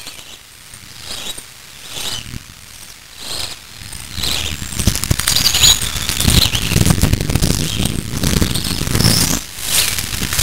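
Scratchy, crackling noise full of rapid clicks, quieter at first and growing louder from about four seconds in.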